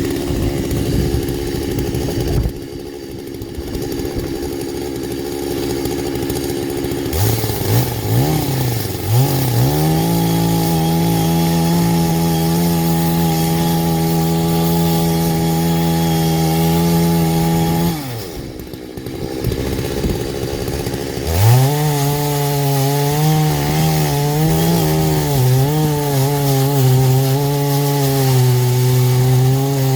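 Chainsaw on an Alaskan chainsaw mill ripping a hickory log lengthwise into slabs, run at full throttle. The engine drops back to idle twice, about 2.5 s and 18 s in, then revs up again. After it comes back up the second time, the pitch wavers as the chain bogs and recovers in the cut.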